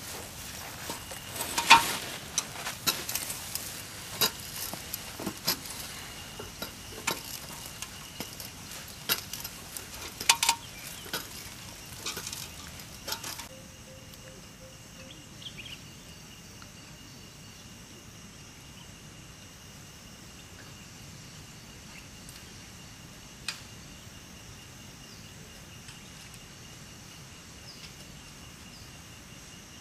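Aluminium extension ladder being handled and raised with its rope: irregular metal clinks and knocks, which stop abruptly about halfway through. A faint outdoor background with a steady high thin tone, like an insect, remains.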